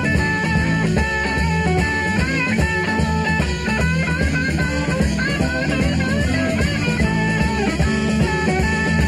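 Southern rock band playing live: electric guitars over bass and drums, with a high lead line that slides and bends between notes.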